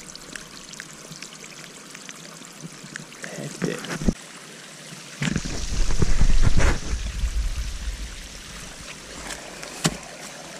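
Water running and trickling over the rock and ice in a steady splashing hiss. A louder low rumble on the microphone comes in about halfway through, and there is a sharp knock near the end.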